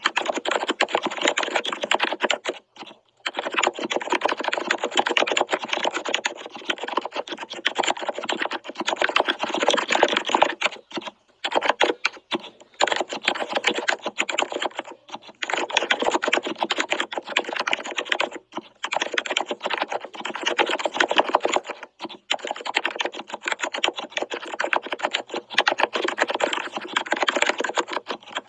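Fast typing on a computer keyboard: a dense, continuous run of key clicks, broken by short pauses several times.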